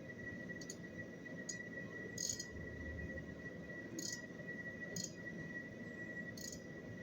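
Machine tool running during gate valve machining: a steady high whine over a low hum, with about six sharp clicks at uneven intervals.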